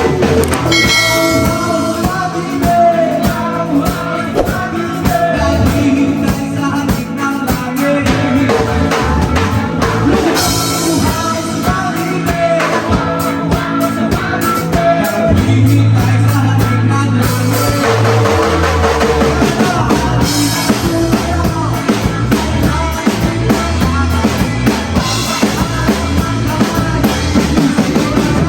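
Rock band playing live, with drum kit, bass and a sung or melodic line over the beat.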